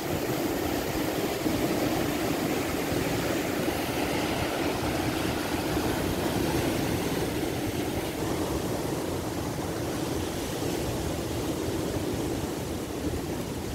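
Red Sea surf breaking against a rocky seawall, with strong wind buffeting the microphone: a steady, loud rushing noise.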